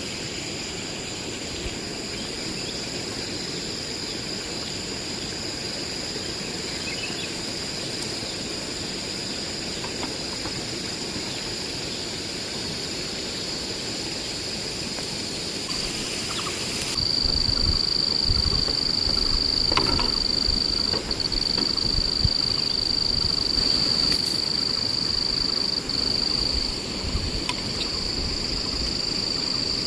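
Forest insects keeping up a steady high-pitched drone over a low rushing hiss. A second, louder insect tone joins about halfway through, with a few faint knocks.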